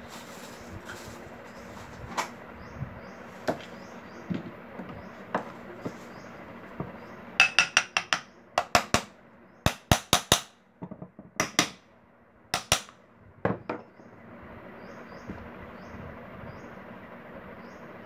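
Metal end cover of a table fan motor being knocked down onto the motor body: a few light clicks, then, about seven seconds in, a run of sharp metallic knocks in quick clusters for several seconds as the cover is seated.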